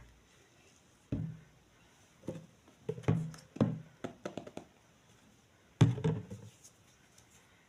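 A series of irregular knocks and taps, like bottles and small objects being picked up and set down on a hard surface, with a louder thunk about six seconds in.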